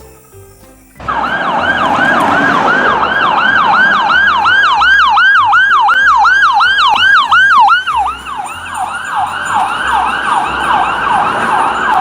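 Toy ambulance's electronic siren sounding, a fast repeating falling sweep about three to four times a second, switched on about a second in. It runs loudest for several seconds, then goes on a little quieter.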